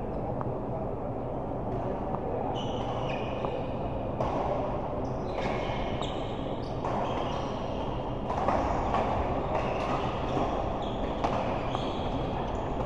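Sports shoes squeaking on an indoor court floor during doubles play: short, high squeals again and again, over the steady hubbub of a large hall.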